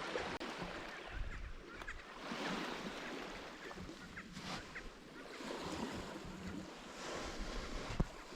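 Small waves washing in and drawing back on a beach, swelling and fading every few seconds, with some wind on the microphone.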